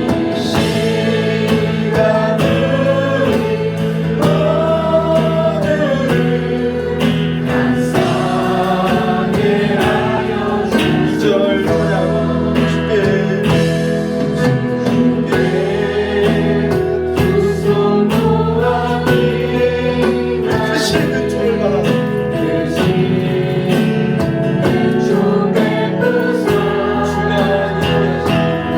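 Worship music: several voices singing a slow hymn together with instrumental accompaniment.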